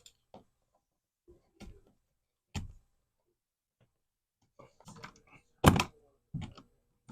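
Scattered clicks and knocks of a screwdriver working out a wall outlet's mounting screws, with one louder knock near the end.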